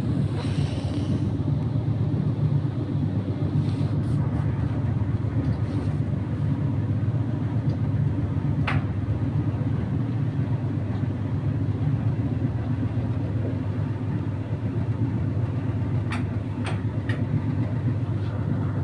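Indesit YT M11 92K RX tumble dryer running, a steady low rumble of the turning drum and fan, with a few short sharp clicks partway through and near the end.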